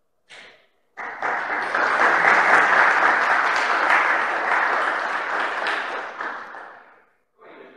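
Audience applauding: the clapping starts about a second in, holds steady, then tapers off near the end.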